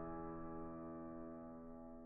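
Background music: a held keyboard chord slowly fading away.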